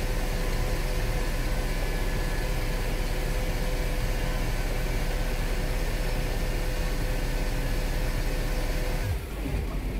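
Engine running steadily at an even speed: a low drone with a thin steady tone above it. About nine seconds in the sound drops abruptly and changes.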